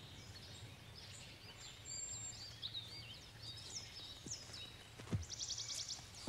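Faint woodland birdsong: many short chirps and whistles from small songbirds, with a quick rattling trill about five seconds in, over a low steady hum. A soft thud comes just before the trill.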